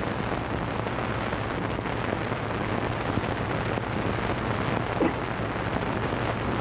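Steady loud hiss and crackle over a low electrical hum: the background noise of an old, worn film soundtrack.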